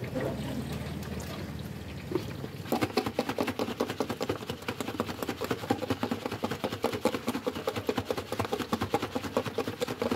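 A fast, even run of short tapping or knocking strokes, several a second, starting about three seconds in over a low steady background hum.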